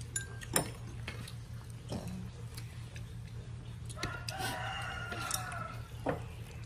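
A rooster crowing once, one long call about four seconds in, over a steady low hum, with a couple of sharp clicks in the first two seconds.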